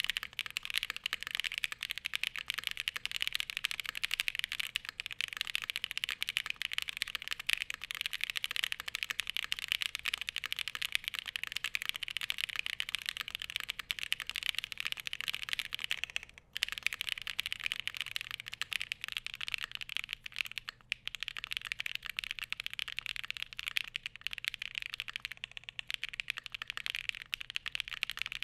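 Fast continuous typing on a Glacier80 mechanical keyboard with SOTC linear switches (long-pole, POM housing, LY stem), factory-lubed and then hand-lubed. It is a dense clatter of keystrokes, very loud and high-pitched, broken by a couple of brief pauses.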